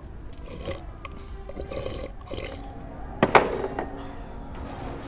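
Wet slurping and swallowing of someone drinking from a mug, with a sharp knock about three seconds in. Faint, steady low music notes come in partway through.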